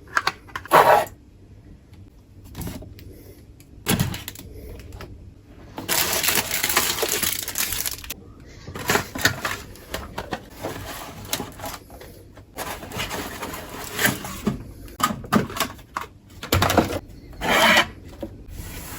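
Pantry items and storage containers being handled: a string of short clicks and knocks, with two longer spells of rustling about six and nine seconds in.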